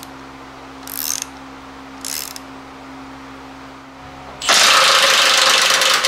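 A hand socket ratchet clicks in three short bursts about a second apart. About four and a half seconds in, a Milwaukee M18 Fuel cordless impact wrench starts up loudly on a frame bolt and runs to the end.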